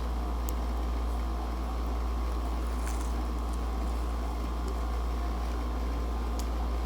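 Steady low hum of room tone, with a few faint clicks.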